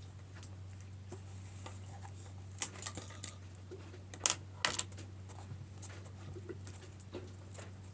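Scattered small clicks and taps of hand-sewing a slide onto sailcloth with needle and thread, a few louder clicks in the middle. A steady low hum runs underneath.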